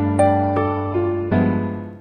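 Background music: a keyboard melody, a new note about every half second, fading and breaking off at the end.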